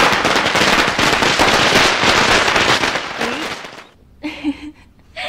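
A hanging string of Chinese firecrackers going off in a dense, rapid crackle of bangs that dies away about four seconds in. A short voice is heard near the end.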